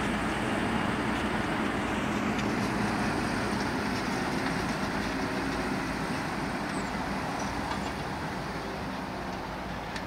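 Tractor diesel engine running steadily under load while pulling a reversible plough, fading slightly toward the end.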